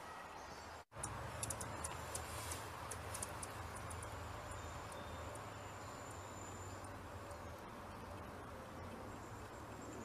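Faint outdoor background with a steady low hum. The sound drops out for an instant just before a second in. After that comes a quick run of sharp high ticks over the next two or three seconds, with a thin high whistle held for a couple of seconds.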